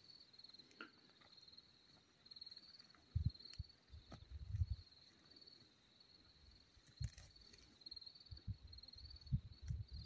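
Insects trilling steadily at a high pitch in faint pulsing swells, with a few scattered low thumps.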